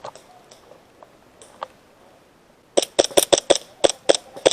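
Airsoft pistols firing: a rapid string of sharp cracks, about nine in under two seconds, starting a little past the middle, after a few faint clicks.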